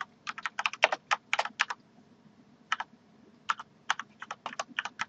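Keystrokes on a computer keyboard: a quick run of typing, a pause of about a second, then another run of keystrokes.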